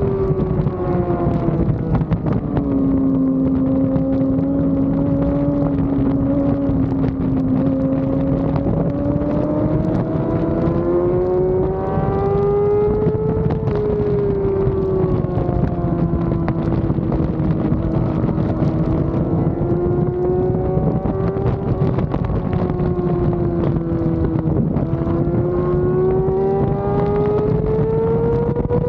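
Yamaha R6 inline-four sport-bike engine running at high revs under race load, heard onboard over steady wind rush. Its pitch drops about two seconds in, climbs slowly for about ten seconds, falls back and holds, then climbs again near the end.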